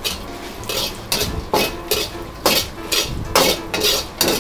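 A metal ladle scraping and knocking against a wok, roughly once a second, stirring dried chilies and Sichuan peppercorns in oil over low heat to infuse the oil with their aroma.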